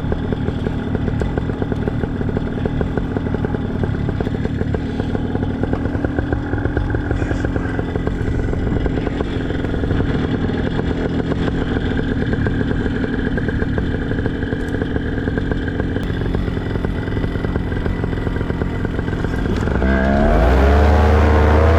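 Paramotor engine running steadily at low throttle, then opened up near the end, getting louder with its pitch rising and wavering.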